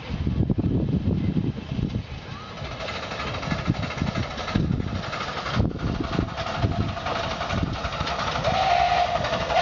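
Miniature ride-on live-steam locomotive running toward the listener with a loaded passenger train, its running gear and wheels rattling over the rails. A steady high tone comes in a few seconds in and grows louder near the end.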